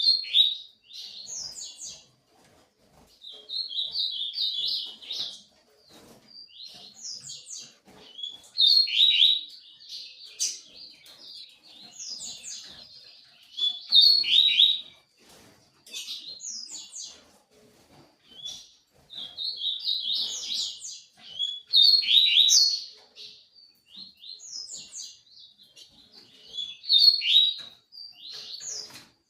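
A songbird singing: bouts of quick, high chirping notes, each a second or two long, repeated every few seconds.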